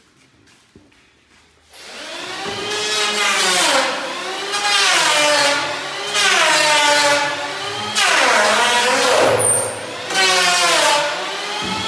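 Corded handheld electric power tool cutting wood, switched on suddenly about two seconds in; its motor pitch drops each time the cutter bites into the door panel and climbs again as it frees, over and over.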